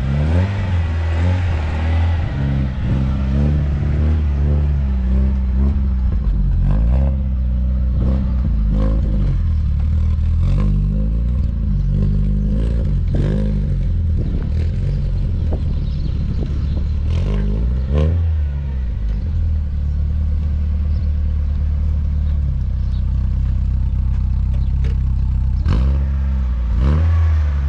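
Peugeot 106 GTI's engine running unevenly after years of standing, just jump-started, and kept on the throttle so it won't stall; the revs rise and fall throughout. Scattered clunks and rattles can be heard as the car rolls over rough ground.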